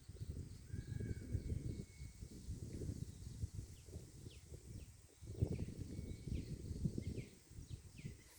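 Birds calling: one short whistled note about a second in, then a run of quick falling chirps through the second half. Underneath is a low, rumbling noise on the microphone that dips briefly in the middle.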